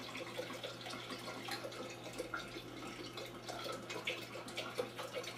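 Cold filtered water pouring steadily from a plastic pitcher into a glass pitcher of ground coffee, splashing onto and soaking the grounds for cold brew.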